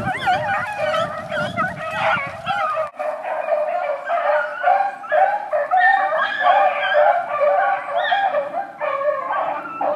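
A pack of beagles in full cry, many voices baying and yelping over one another without a break as the hounds hunt. A low rumble lies under the first three seconds and stops abruptly.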